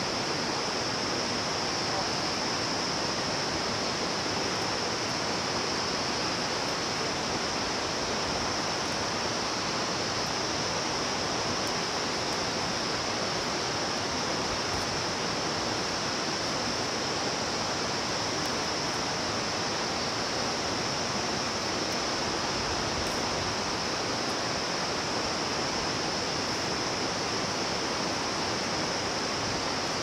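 Steady rushing noise like running water, with a steady high-pitched hiss above it, unchanging throughout.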